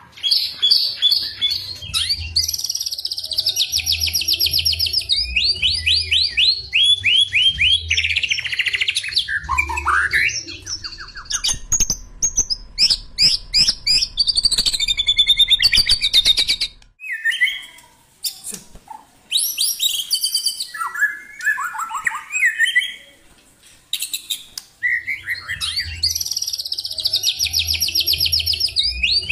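Caged white-rumped shamas (murai batu) singing: loud, fast runs of sharp repeated whistled notes and tight rolling trills, with short pauses between phrases.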